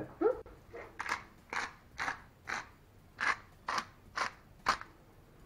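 A hand-twisted pepper mill grinding pepper: about ten short grinding strokes, roughly two a second.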